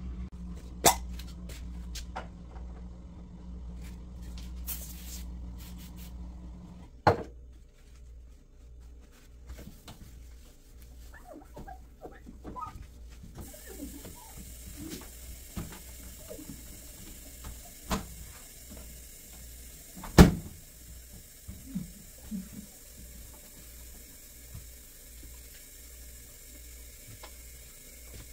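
Kitchen handling noises: scattered clicks and light knocks of things being handled and set down, with one sharper knock about two-thirds of the way through. A low steady hum stops with a click about seven seconds in.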